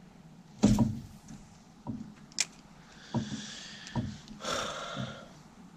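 Hollow knocks in a small aluminium boat as fishing gear is handled: one loud thump under a second in, then several lighter knocks and a sharp click, with a soft hiss in the middle.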